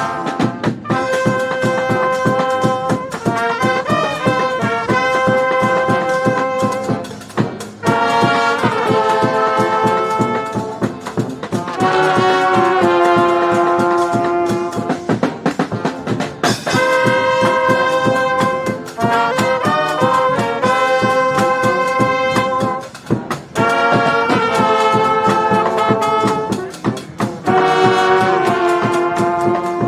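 Balkan-style street brass band playing loudly: trumpets and trombones in held melodic phrases of a few seconds each, over a steady percussion beat.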